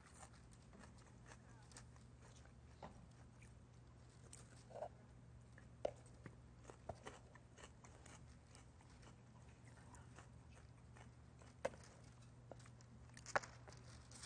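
Near silence: a faint steady low hum with a few small, scattered clicks.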